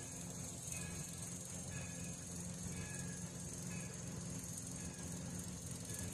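Steam locomotive's bell ringing faintly in slow, even strokes about once a second as the engine approaches, over a steady high hiss.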